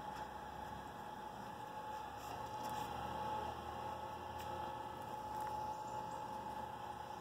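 Electric motor of a Power Caster PC1 powered trailer dolly running with a steady whine and a low hum while it pulls a boat trailer, the hum growing stronger about a second and a half in. A few light clicks come around the middle.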